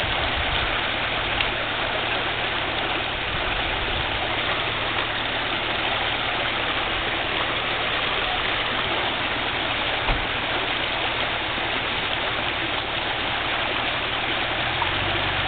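Off-road 4x4's engine idling steadily under an even rushing hiss.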